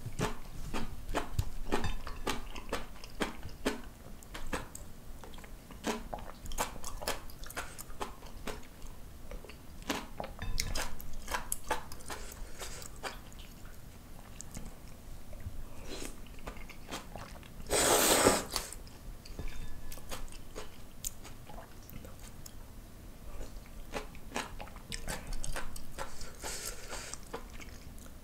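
Close-miked chewing of instant ramen noodles, with wet mouth clicks and smacks. About two-thirds of the way through comes one loud, short slurp of noodles, and a softer slurp near the end.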